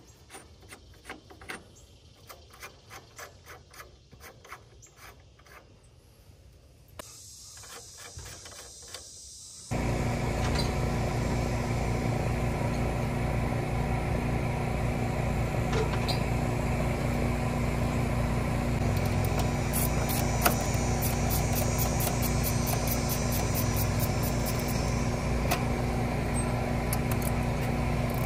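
Faint small clicks of tools and brass fittings, then a steady motor sound starts abruptly about ten seconds in and runs on evenly.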